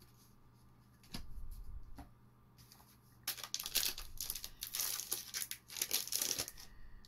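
Foil wrapper of a Magic: The Gathering booster pack crinkling and tearing as it is pulled open by hand, a dense run of crackles lasting about three seconds in the second half. A softer rustle of cards being handled comes about a second in.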